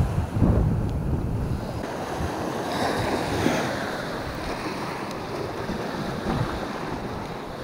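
Sea waves washing against a rocky shoreline, with wind buffeting the microphone. The wash swells a little about three seconds in.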